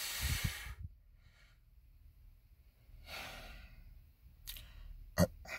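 A man sighs heavily close to the microphone, then breathes out more softly about three seconds in. Three short, sharp clicks come near the end.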